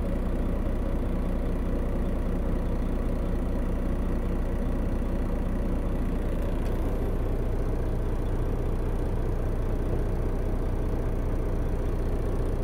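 Semi truck's diesel engine idling steadily, heard from inside the truck cab.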